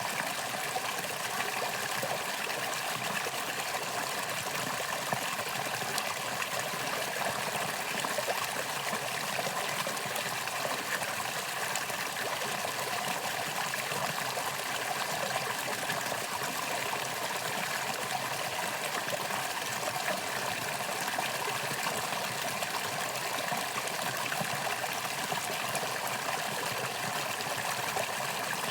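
Mountain stream flowing over rocks: a steady rush of water with trickling and splashing.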